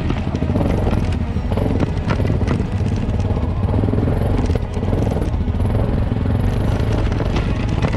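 Heavy adventure motorcycle engine running at low revs as the bike crawls along a slippery mud track, with a few short knocks over the rough ground.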